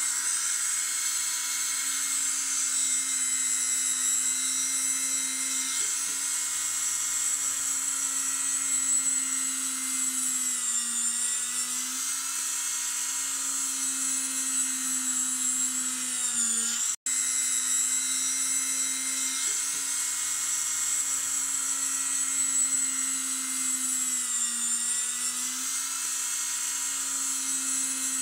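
Small corded rotary tool running at high speed with a steady whine while it drills small holes in a model ship's sail. Its pitch sags briefly now and then as the bit bites, and the sound cuts out for an instant about 17 seconds in.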